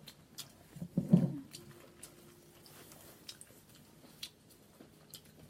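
Close mouth sounds of someone eating seafood: wet chewing and lip-smacking clicks scattered throughout, with one short, loud vocal sound about a second in.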